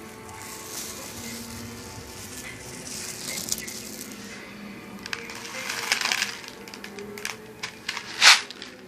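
A run of sharp cracks and crackling, ending in one loud crack near the end. It is the kind of bang that could be a gunshot or a firework.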